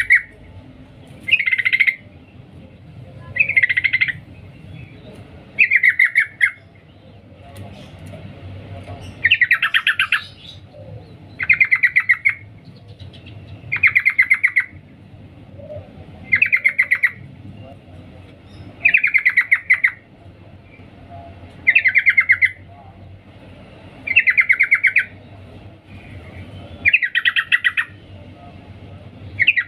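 Yellow-vented bulbul (trucukan) female giving its 'cuk cuk' call, a short rapid chattering phrase repeated every two to three seconds, the call used to draw in a male.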